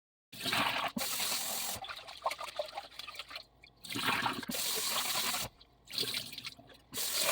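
Water splashing and trickling as raw ponni parboiled rice is washed in a vessel. It starts abruptly about a third of a second in and comes in several stretches with short pauses between them.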